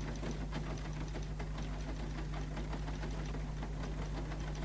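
A small machine running: a steady low hum with rapid, even clicking.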